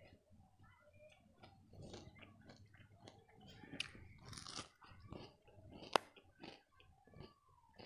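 Someone biting and chewing crunchy lai, a puffed-rice sweet: irregular, crisp crunches, with one sharp crack about six seconds in.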